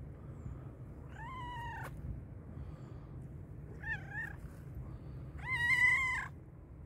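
Black-and-white domestic cat meowing three times, the third meow the longest and loudest. These are the calls of a hungry cat asking for food.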